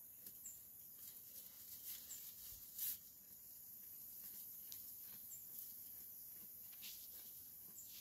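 Dorper ewe pulling hay through a slow-feed hay net and chewing: faint, irregular rustling and crunching, with one sharper click about three seconds in.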